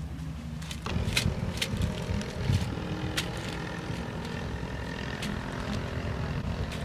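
Aluminium foil crinkling and clicking in short bursts as raw meat is cut and lifted on it, over a steady low rumble.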